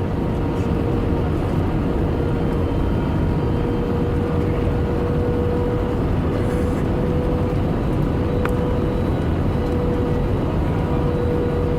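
Airbus A320 cabin noise: a steady rumble of engines and airflow with a constant, even whine running through it.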